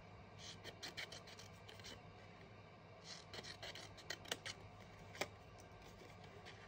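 Scissors cutting strips into a small piece of white cardstock: faint snips in a few short runs, with a couple of sharper single clicks.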